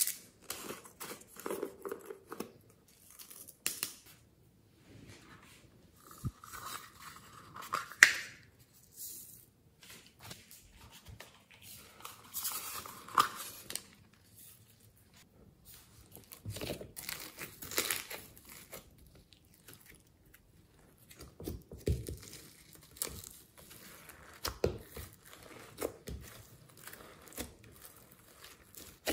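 Glossy slime loaded with glitter, sequins and other toppings being handled and mixed by hand: irregular crinkling and crackling sounds in separate bursts, with quiet gaps between.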